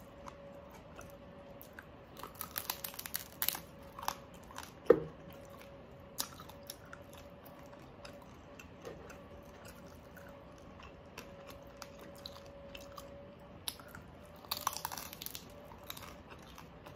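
Close-miked chewing and crunching of crispy deep-fried pork knuckle skin, in crackly bursts two to four seconds in and again near the end. There is one short, louder smack about five seconds in.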